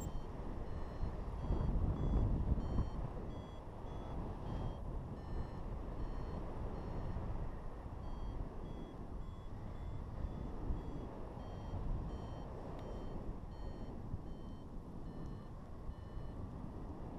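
A paragliding variometer beeping in short tones about twice a second, the pitch stepping up and down, the sound an instrument gives while the glider is climbing in lift. Under it, wind rushes on the microphone in flight, strongest about two seconds in.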